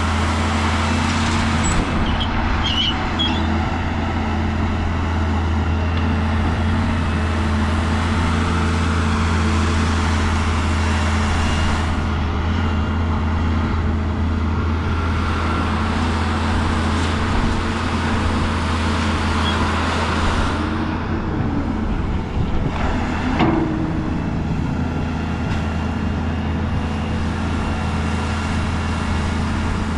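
Diesel engine of heavy earthmoving machinery running steadily with a deep low drone, with a few brief knocks or clanks.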